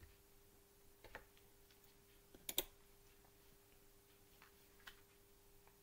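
Near silence: room tone with a faint steady hum and a few faint clicks, the loudest a close pair about two and a half seconds in.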